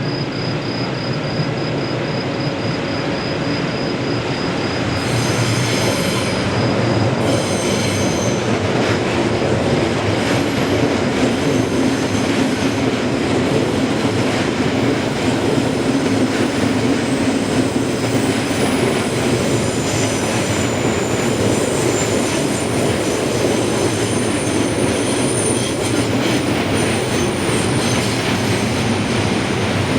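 A train passes over a Japanese railway level crossing with a steady rumble and clatter of wheels on rails. A crossing warning bell dings rapidly and evenly until about seven seconds in. High wheel squeal comes in during the second half.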